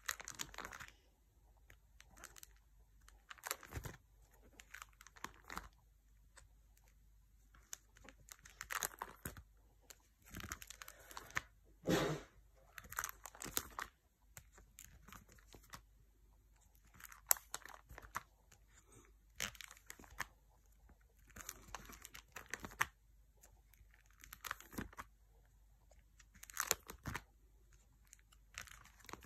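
Clear plastic pocket pages of a trading-card binder crinkling and rustling as they are handled and turned, in irregular bursts every couple of seconds, the loudest about twelve seconds in.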